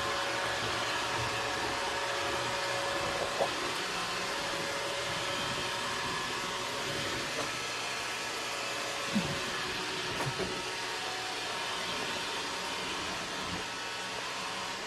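Roomba robot vacuum running: a steady whir from its motor and brushes, with a few short light knocks.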